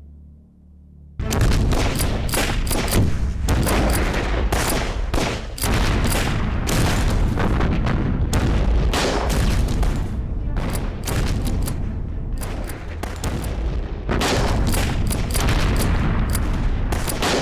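Battle sound effects: dense rifle and machine-gun fire mixed with explosions, breaking out suddenly about a second in and going on without a pause.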